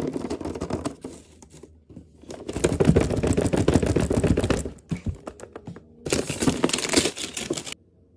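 Gift-wrapping paper crinkling and tearing as it is pulled off a box, in three bursts of crackling, the middle one longest and loudest.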